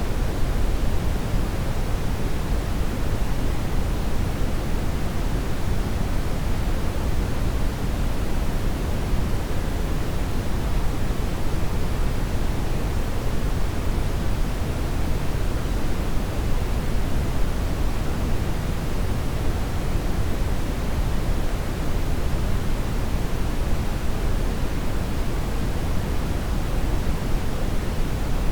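Steady brown noise: an even, unchanging rumbling hiss weighted toward the low end.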